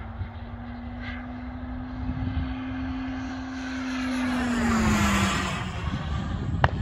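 Radio-controlled CARF Ultra Flash Evo model jet's turbine whining as it flies by. Its steady note drops in pitch about five seconds in as the jet passes closest, with the rush of the jet loudest at that moment. A short sharp click comes just before the end.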